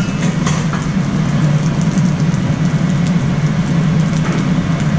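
Steady low roar of a commercial wok range's gas burner running at full flame under a wok of frying rice, with a few light metal clicks in the first half second.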